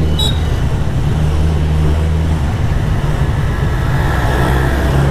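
Kawasaki Z1000SX inline-four engine running at low town speed, heard from the rider's helmet as a steady low hum that turns rough for a couple of seconds midway before settling again.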